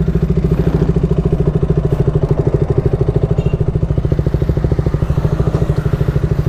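KTM Duke 200's single-cylinder four-stroke engine running at low, steady revs while the bike is ridden slowly along, with a fast, even exhaust pulse.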